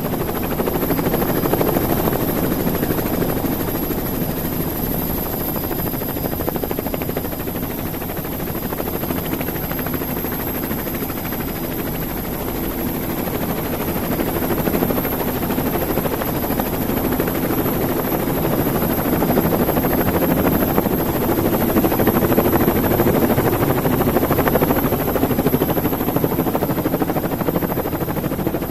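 Radio-controlled model helicopter in flight, heard through its onboard camera: steady rotor and motor noise with a thin, high electric whine above it, swelling a little now and then.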